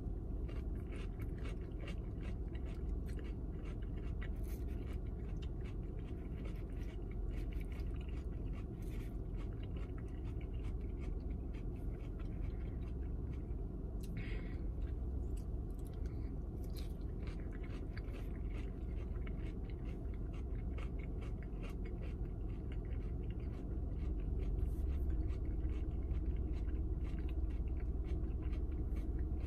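Close-up chewing and mouth sounds of someone eating takeout green beans and rice with a plastic fork, with many small scattered clicks and scrapes, over a low steady hum.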